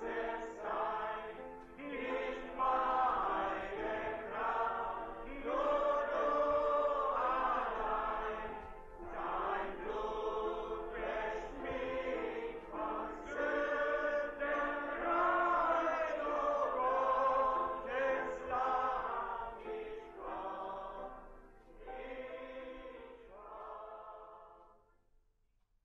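A congregation singing a worship hymn together in a hall, the voices fading out near the end.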